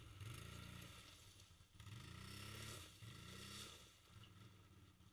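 ATV engine running at low revs, its pitch rising and falling about three times and fading near the end.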